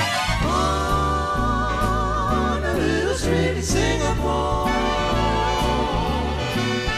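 Live big band music with a four-voice vocal group singing long held notes in close harmony, with vibrato. A bass line steps along underneath, with cymbal strikes.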